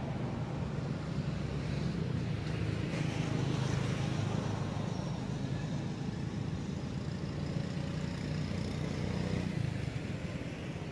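Steady low engine rumble of a motor vehicle.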